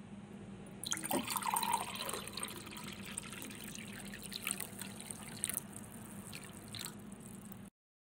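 Water dripping into a glass: an irregular run of drops, thickest in the first couple of seconds, starting about a second in and cutting off just before the end.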